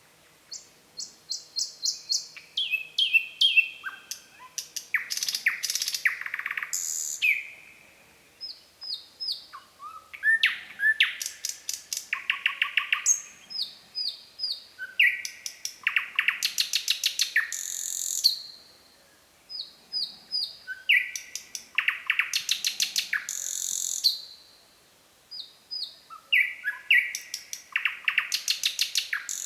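Nightingale singing: about five phrases, each a run of repeated whistled notes and fast rattling trills, with short pauses between them.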